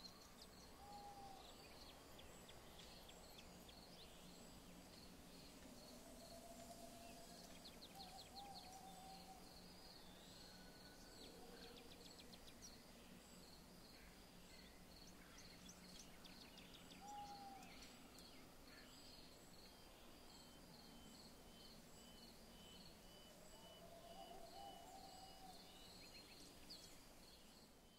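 Faint outdoor ambience: a high chirp repeating evenly and steadily, like insects, with short whistled calls every few seconds.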